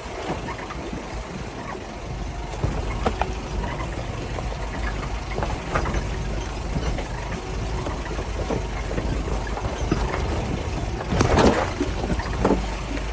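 UAZ off-roader's engine running with a steady low rumble while the vehicle creaks and squeaks again and again, like an old cart, with the loudest creak about eleven seconds in.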